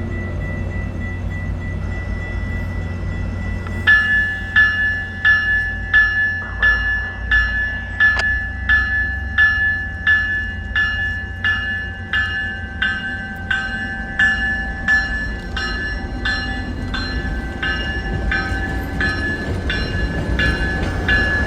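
A railroad bell starts ringing about four seconds in, striking steadily about one and a half to two times a second, over the steady low rumble of idling diesel locomotives as the double-headed Tri-Rail train prepares to depart.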